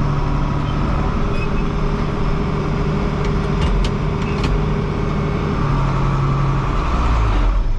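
John Deere tractor engine idling steadily, with a few faint clicks about halfway through.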